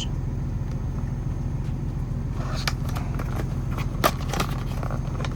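Truck engine idling, a steady low drone. Light handling clicks and rustling start about two and a half seconds in, with one sharper click about four seconds in.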